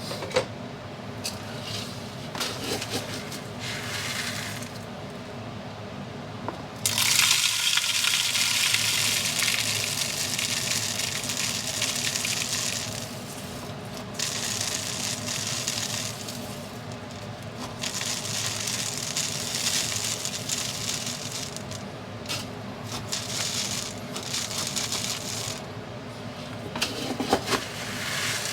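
Bird seed poured through a plastic funnel into a 2-liter plastic bottle: a rush of pouring grains that starts suddenly about seven seconds in and comes in several pours with short breaks.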